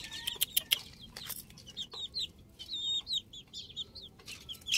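Young chickens peeping and clucking in their pen: many short high chirps, with scattered clicks.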